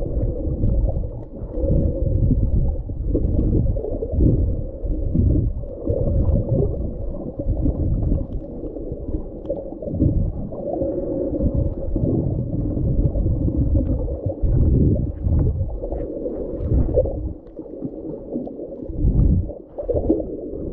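Muffled underwater noise picked up by a submerged camera while snorkeling in the sea: water rushing and sloshing in uneven swells, dull and low, with almost nothing high-pitched.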